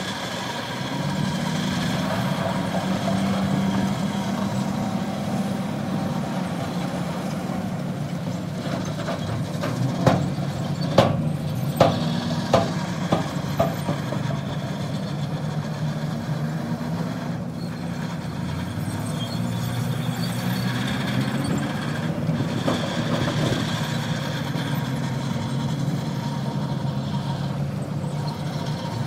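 Diesel engine of heavy earthmoving machinery running steadily, its pitch shifting as it works. About a third of the way in comes a run of about six sharp clanks.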